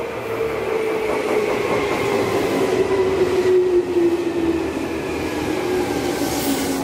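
Electric commuter train pulling into a station platform: its motor whine falls steadily in pitch as it slows, over the noise of its wheels on the rails.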